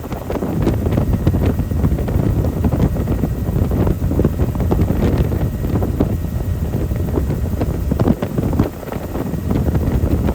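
Wind buffeting the microphone aboard a helicopter in flight, a loud low rushing rumble that swells and drops in irregular gusts.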